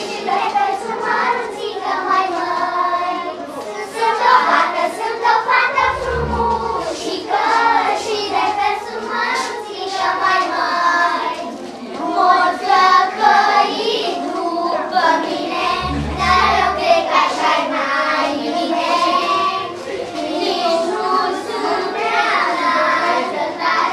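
A group of young girls singing a song together, with two short, dull low thumps, about six and sixteen seconds in.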